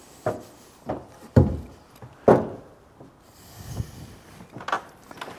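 Large wooden shed door being opened: a series of wooden knocks and clunks, the two loudest about one and a half and two and a half seconds in, with faint rubbing between.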